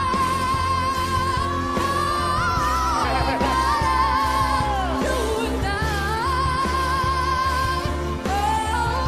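A singer holding long, high notes with vibrato, sliding down and breaking into short runs, over a pop backing track with a steady bass.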